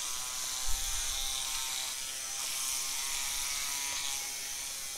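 Small rotary engraving tool fitted with a diamond burr running steadily, a faint whine under a high grinding hiss, as it engraves a signature into mirror glass.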